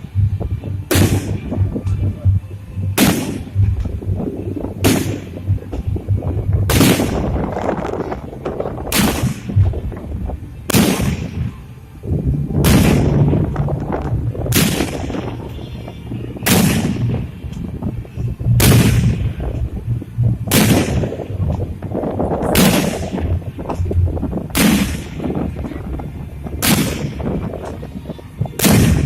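Fireworks display: aerial shells going off with sharp booms about every two seconds, each followed by an echoing tail and crackle, over a steady low rumble.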